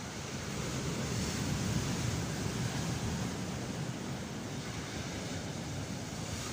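Sea surf breaking and washing up the beach: a steady rushing that swells a little about a second in, then eases.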